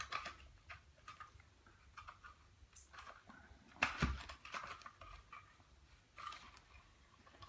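Light clicks, taps and rustling of a mini PC's metal and plastic case parts being handled and refitted, with a sharper clack about four seconds in and another small clatter around six seconds.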